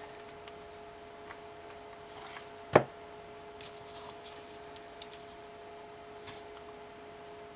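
A single sharp knock of a hot glue gun set down on the tabletop about three seconds in, followed by light rustling and small clicks as pieces of ribbon are handled and pressed together, over a steady faint hum.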